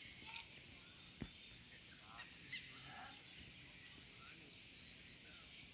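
A steady high insect drone, with several short bird chirps scattered through it and a single sharp click about a second in.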